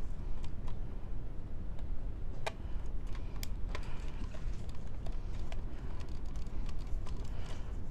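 Scattered light clicks and taps of screws and plastic radio parts being handled during disassembly, with a couple of sharper clicks a few seconds in, over a steady low background rumble.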